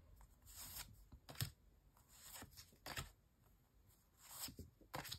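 Faint rustling and sliding of glossy photo postcards being flipped through by hand, a soft swish every second or so as a card is moved, with a light tick about one and a half seconds in.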